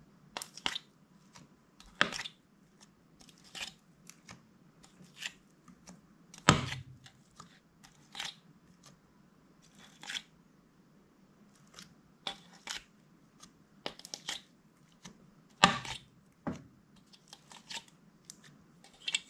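Slime being worked by hand, giving irregular sticky pops and crackles about once or twice a second, with a few louder snaps.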